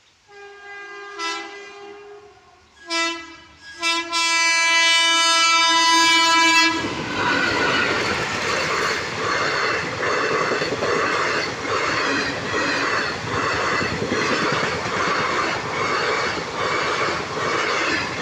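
Intercity Express train's locomotive horn sounding in several blasts, the last and loudest held for nearly three seconds. The train then passes with a steady rush of noise and regular clacking of wheels over rail joints.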